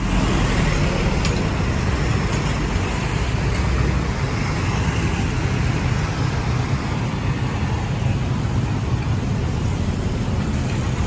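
Steady city road traffic: cars, trucks and motorbikes running past close by, a continuous mix of engines and tyre noise.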